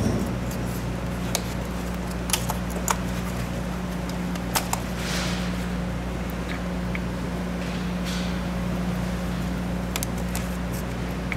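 Gloved hands working wiring, hoses and plastic clips loose in an engine bay: a few sharp clicks and soft rustles over a steady low hum.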